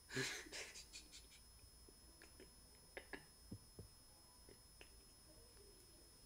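A man's quiet, breathy laughter in a quick run of short bursts over the first second, then near silence with a few faint clicks.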